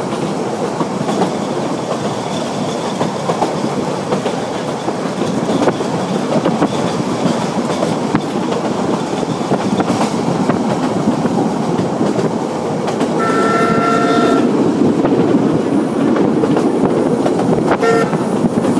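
Narrow-gauge train carriage running on the rails, a steady noise heard from an open carriage window. The steam locomotive's whistle sounds for about a second roughly three-quarters of the way through, then gives a very short toot near the end.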